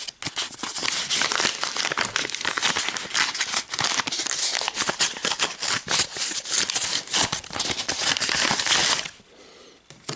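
White paper envelope being handled and opened by hand, its paper crinkling and rustling with many small crackles. The rustling stops about a second before the end.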